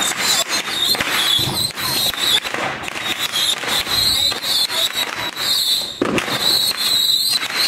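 A fireworks cake of thousands of tiny whistling rockets (babypijltjes) firing in rapid succession: a continuous high, wavering whistle packed with quick pops and crackles.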